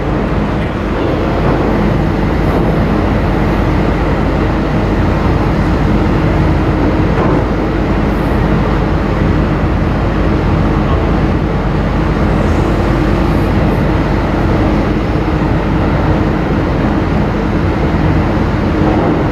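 Ferry's engines and propulsion machinery droning steadily, a loud even hum with several low tones held under a noisy rumble.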